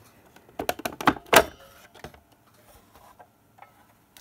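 A quick run of small clicks and knocks about a second in, then a few faint ticks: small parts being handled and set down on a workbench.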